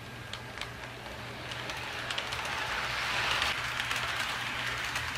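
HO scale model train rolling along the track, its wheels clicking over the rail joints with a steady running noise that grows louder toward the middle as the train comes closer.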